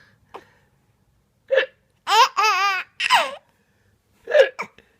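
A man hiccuping and a baby laughing at it: short, sudden hiccups come a few times, and between them the baby lets out a high-pitched run of laughter in the middle, the longest and loudest sound.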